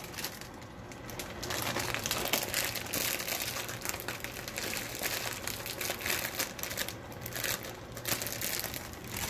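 Plastic bag of frozen broccoli florets crinkling as it is handled and opened, growing louder about a second and a half in.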